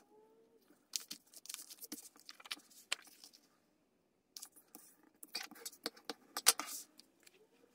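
Paper being handled and folded, rustling and crinkling in two spells with a gap in between, then a bone folder scraped along the fold to crease it, the loudest crackles coming in this last stretch.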